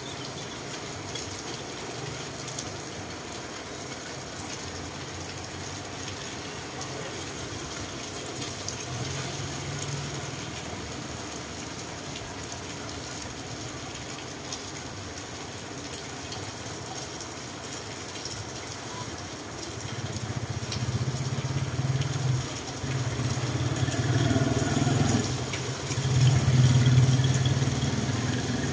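Steady rain falling on a wet street. About two-thirds of the way in, a motorcycle-sidecar tricycle's engine comes in, running and getting closer, and is loudest near the end.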